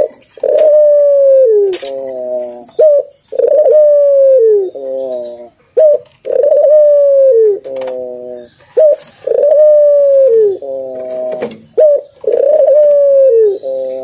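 White ringneck (collared) dove cooing loudly, the same phrase repeated about every three seconds, five times. Each phrase is a long coo that falls in pitch, followed by a short rolling part.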